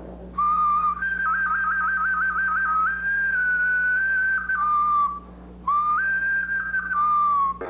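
Small round clay flute played with a clear, pure tone in two short phrases. The first jumps up, flutters in a quick trill between two notes, holds the higher note, then steps down. After a brief pause the second jumps up, holds, and drops back with a slight slide down at the end.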